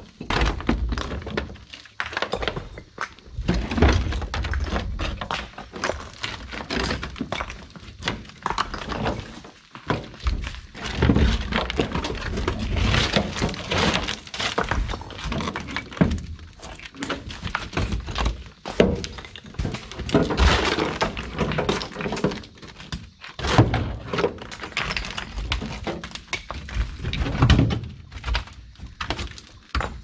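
Chunks of broken concrete being thrown by hand out of a pickup truck bed onto a rubble pile: a steady run of irregular clattering knocks as the pieces strike one another and the bed.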